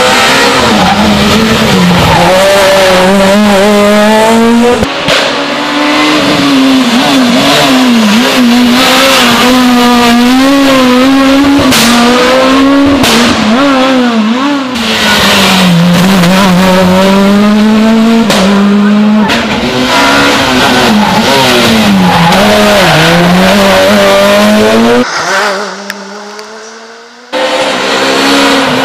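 Rally car engines at high revs, the note rising and falling again and again through gear changes and lifts off the throttle, with tyre squeal. Near the end the sound fades away briefly, then an engine cuts back in abruptly.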